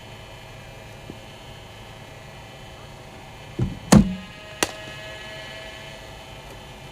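A cricket ball delivered from a bowling machine and played by the batsman: a dull thud and a loud knock, then a sharp crack of ball on bat with a short ring, all within about a second. A steady low hum runs underneath.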